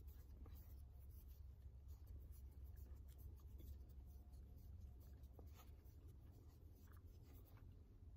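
Faint scraping and light clicks of a wooden fork stirring noodles in a stainless-steel lunch box, over a steady low rumble.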